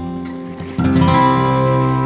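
Background music of acoustic guitar, with a new strummed chord coming in a little under a second in.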